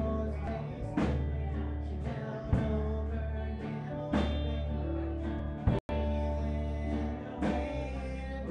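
A live band plays a country-rock song: acoustic guitar strumming over a steady bass line, with a sharp beat about every second and a half. The sound cuts out for an instant about six seconds in.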